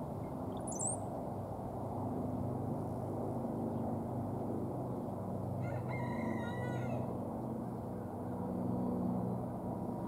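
Male brown-headed cowbird singing: a brief, very high thin whistle about a second in, then a song phrase of stacked notes lasting just over a second about six seconds in. A steady low rumble runs underneath.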